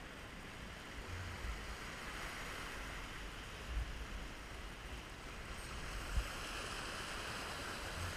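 Ocean swell washing and foaming over rocks, a steady rushing hiss, with a few brief dull low bumps, the sharpest about six seconds in.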